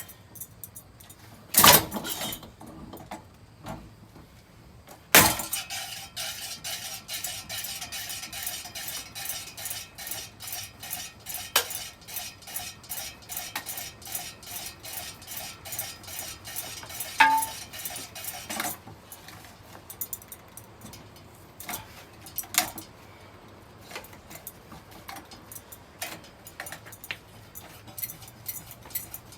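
A ceiling fan being smashed: two hard blows, then a fast, dense train of metallic clinks and rattles for about thirteen seconds that thins to scattered clinks near the end.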